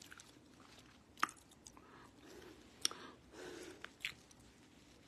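A person chewing food close to the microphone, faint, with a few sharp mouth clicks.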